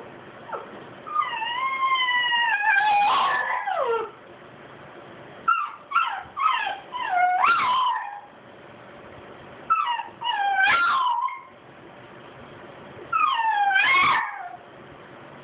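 French bulldogs whining and howling in four long bouts, high cries that slide up and down in pitch. They are crying for an owner who has said good night and gone out of sight.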